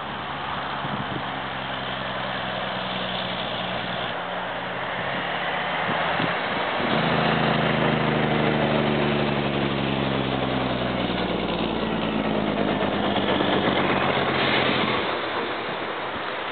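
A motor vehicle engine running under steady wind hiss. The engine comes up louder about a third of the way in, its pitch sagging and then rising, and falls back near the end.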